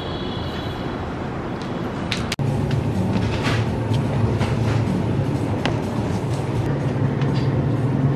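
Steady street background noise that breaks off abruptly about two and a half seconds in. After that comes supermarket ambience: a steady low hum with a few faint clicks.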